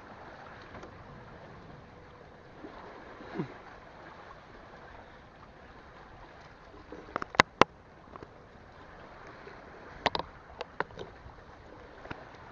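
Steady wind and sea-water noise, with a few sharp knocks about seven seconds in and a few more around ten seconds in.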